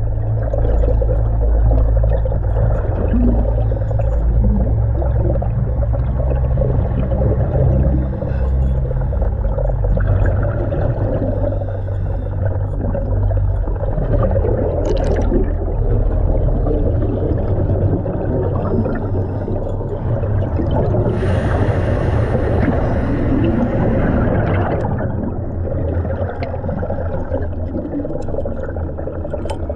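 Underwater sound around a diver at work: a steady low rumble and churning water noise, with a burst of hissing air lasting a few seconds about two-thirds of the way through.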